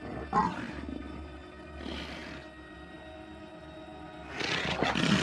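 Leopard snarling and growling in warning: a female telling a male to keep away. There is a sharp snarl about half a second in, a weaker one near two seconds, and a louder, longer growl starting near the end.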